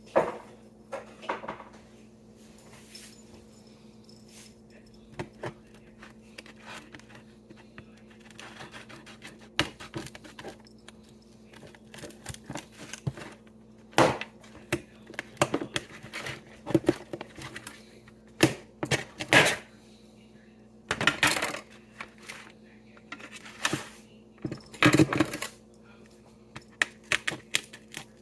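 Knife cutting through smoked baby back ribs on a cutting board: irregular clicks and knocks of the blade striking the board, with a few longer rasping cutting strokes later on.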